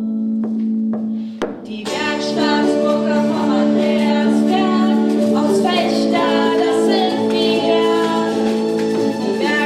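A band playing a pop song: a held chord from the accompaniment, then singing comes in about two seconds in over it, with light percussion.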